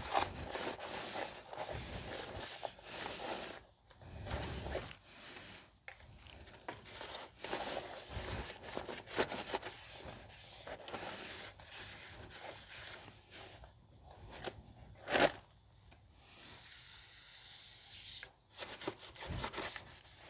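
Quiet, irregular rubbing and scraping of a rag wiping down a new brake rotor, cleaning off the rust-preventive oil it was shipped with. There is one short, louder knock about fifteen seconds in.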